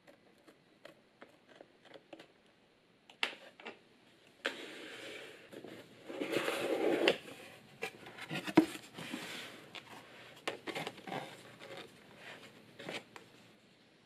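Packaging being handled and opened: rustling and scraping of paper or plastic, with scattered small clicks and knocks. The rustling is loudest about halfway through, with one sharp knock just after.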